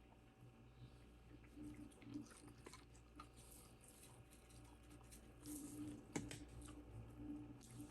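Faint close-up chewing of food, with small uneven mouth clicks and one sharper click about six seconds in.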